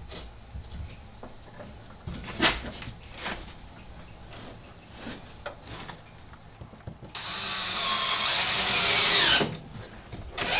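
Cordless drill driving a screw up through a ceiling panel into the framing: it runs for about two seconds with its pitch falling as the screw bites, stops, then runs again briefly near the end. Before that, a few light knocks.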